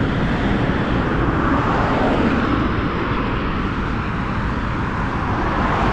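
Steady rush of fast road traffic on a highway, with cars swelling past in passing whooshes.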